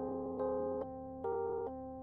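Background music on a keyboard: a steady run of pitched notes and chords, a new one about every half second.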